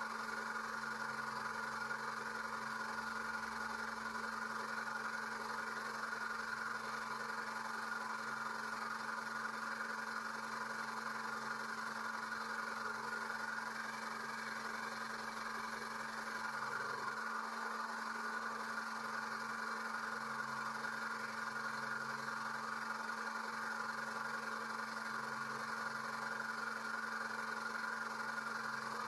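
Small electric oil extractor pump running with a steady hum, sucking engine oil up through a thin tube inserted down the oil filler opening.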